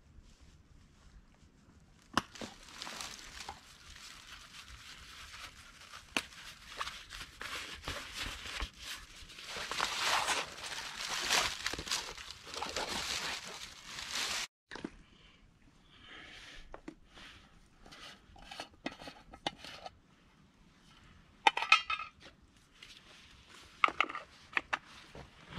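Camping gear being unpacked by hand: a long stretch of fabric and leather pack and pouches rustling, then scattered sharp clicks and metal clinks of kit being handled.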